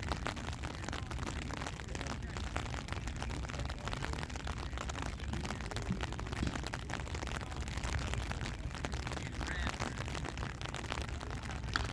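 Steady rain, a dense patter of fine drops, over a low steady rumble.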